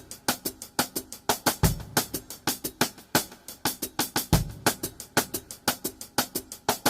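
Background music: a drum-led beat with fast hi-hat and snare hits and a kick drum every couple of seconds.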